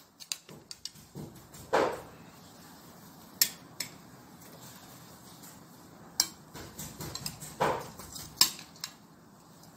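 Metal spoon clinking and scraping against a ceramic bowl and plates as fruit salad is scooped out and served: a dozen or so sharp clinks in clusters, with a couple of longer scrapes.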